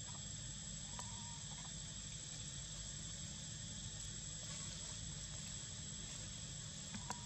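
Steady, thin, high-pitched insect drone, unbroken throughout, over a low background rumble; a couple of faint clicks about a second in and near the end.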